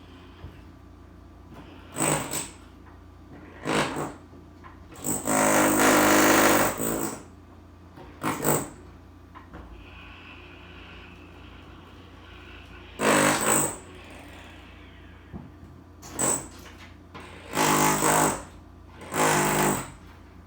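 Loud drilling in about eight separate bursts of half a second to nearly two seconds, the longest a little over five seconds in, with quieter pauses between them over a steady low hum.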